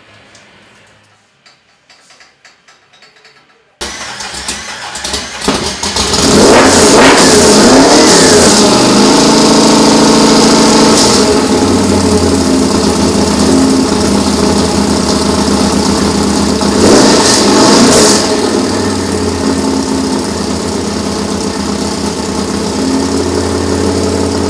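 Stadium race truck's engine cranks and catches suddenly about four seconds in, building to a loud run. It is revved up and back down twice, once soon after starting and again later, and otherwise runs at a steady idle.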